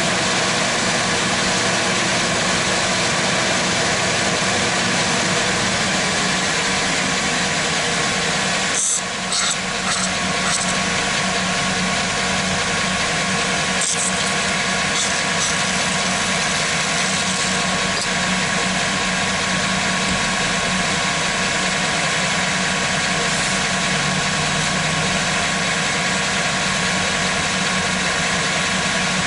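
Chevrolet Silverado 1500's engine idling steadily, with a few short hisses of aerosol spray about nine seconds in and again around fourteen seconds, as a lubricant is sprayed through a straw onto the control arm bushing to check it as the source of a noise.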